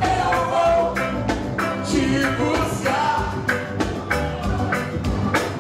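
Live gospel band playing an upbeat song, with a steady drum beat under instruments and singing.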